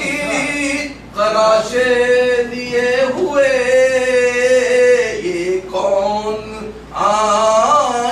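A man singing Urdu verse unaccompanied in the tarannum style of a mushaira: long held notes with wavering pitch, in three sung phrases with short breaks between them.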